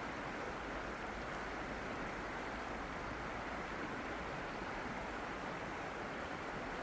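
Steady rushing of running water, an even hiss at a constant level with no surges or breaks.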